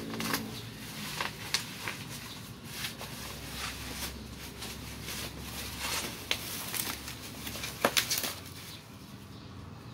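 Thick plastic shipping wrap being cut with scissors and torn open by hand: irregular crinkling, rustling and sharp snips, with the loudest cluster of crackles about eight seconds in.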